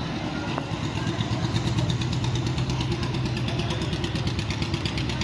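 A motor vehicle's engine running at idle, a steady hum with a fast, even ticking that becomes clearer about a second in.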